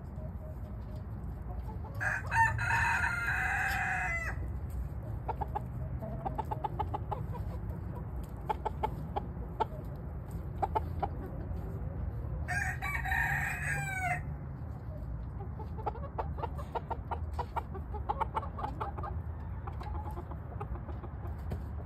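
A rooster crows twice, about ten seconds apart, each crow lasting about two seconds, with short clucking calls from the chickens in between.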